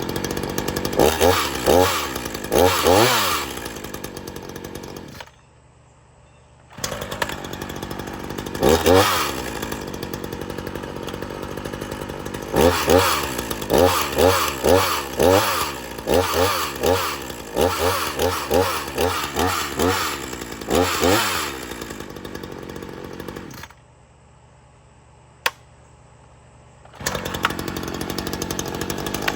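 Ryobi RY3716 37cc two-stroke chainsaw running and revved again and again in short blips between idle and high revs. Twice it goes quiet for a couple of seconds, then runs again.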